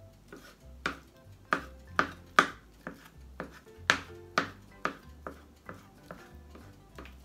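Kitchen knife chopping a block of mozzarella cheese on a cutting board: sharp knocks of the blade on the board, about two a second and slightly irregular, some louder than others.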